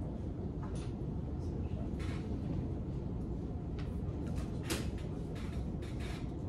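Classroom room noise: a steady low hum with a few soft clicks and rustles scattered through it, one a little louder about two-thirds of the way in.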